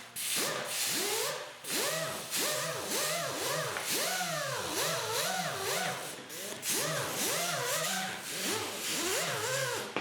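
Power-driven brass wire wheel scrubbing an aluminium intake manifold: a harsh hiss of bristles on metal, with the motor's pitch rising and falling over and over as the wheel is pressed on and eased off.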